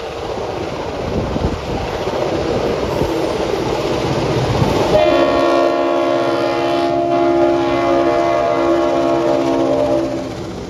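A pair of 1960s NSW 42 class streamlined diesel-electric locomotives approaching under power. About halfway through, the leading locomotive sounds one long horn blast of several notes together, which lasts about five seconds.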